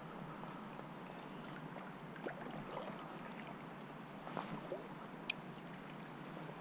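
River water lapping and rippling at the bank, with small scattered splashes. One sharp click a little past five seconds in.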